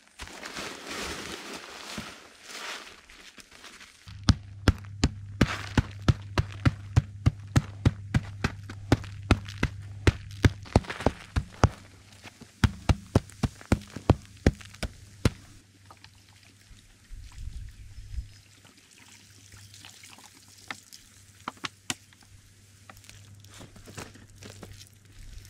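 Dry clay lumps poured out of a sack onto a plastic sheet, then a wooden club pounding the clay clods in sharp repeated knocks, about three a second for some ten seconds. Afterwards only a few scattered light knocks.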